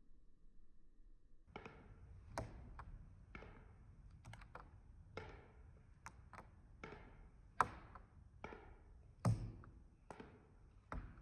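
Irregular light taps and clicks, one or two a second, from a painter moving around a floor canvas while handling a paint can and dripping stick, with a few louder knocks in the second half.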